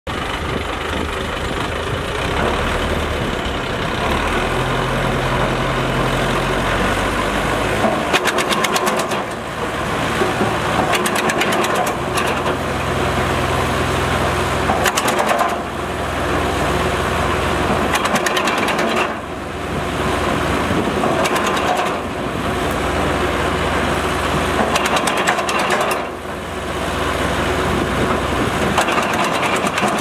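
Tractor-powered wood chipper running steadily together with the tractor's engine, with several short crackling bursts as branches are fed in and chipped.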